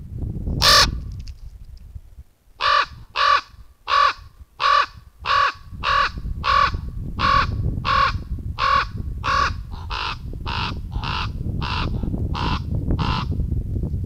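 Common raven calling a long, evenly paced series of about seventeen short croaks, roughly one and a half a second, after a single sharp sound about a second in.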